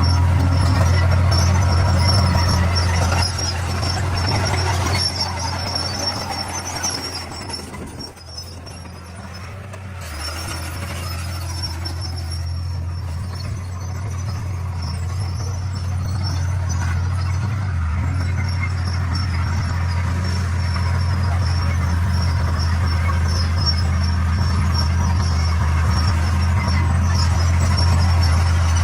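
D41 bulldozer's diesel engine running under load with a steady deep drone and a thin high-pitched whine above it. It eases off about eight seconds in, then builds back up.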